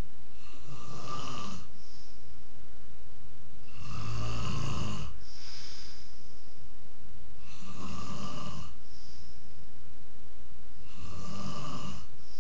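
A man snoring in his sleep: four loud snores at a steady rhythm, about three and a half seconds apart and each lasting just over a second, with fainter breaths between them.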